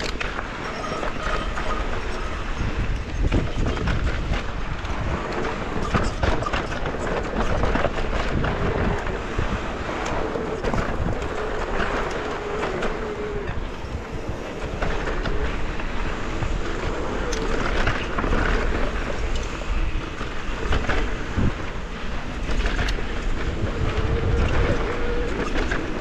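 Mountain bike riding a rough dirt trail: tyre noise and the bike's constant rattle and clatter over bumps, with wind on the microphone.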